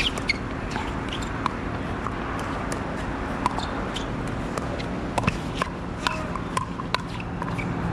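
Pickleball paddles hitting a hard plastic ball during a rally: a string of sharp pops at irregular intervals, a few of them close together, over a steady low hum.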